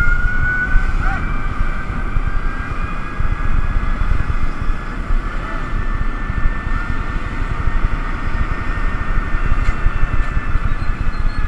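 Moving golf cart: a steady high whine that rises slightly in pitch over the first couple of seconds and then holds, over a continuous low rumble of rolling and wind.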